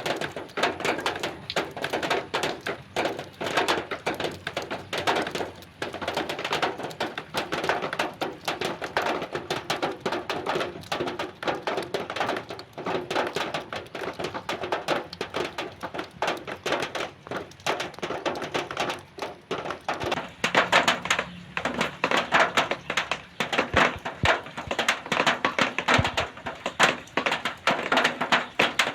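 Rain water striking zinc sheet metal: a dense, irregular patter of drops tapping and knocking on the metal, a little heavier in the last third.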